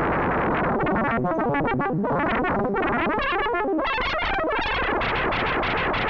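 Buchla Music Easel synthesizer playing a chaotic, noisy tone whose pitch and timbre are scrambled by random voltages from the Toolbox card, sampled by the modulation oscillator near audio rate. It starts as a dense buzz, breaks into fast jittering pitch fragments about a second in, and turns into a rapid, even pulsing near the end.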